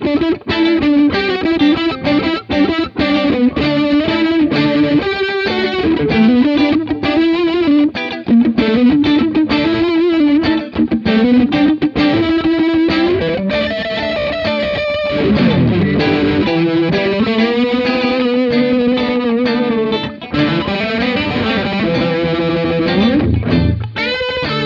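Two electric guitars playing together through a Fender Pinwheel rotary speaker emulator pedal, giving a Leslie-style rotating-speaker sound. Quick runs of notes give way about halfway through to sliding and held notes.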